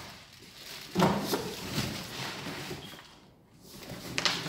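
Cardboard box flaps and packaging rustling and scraping in irregular bursts, loudest about a second in, as a person pushes up out of a large cardboard shipping box.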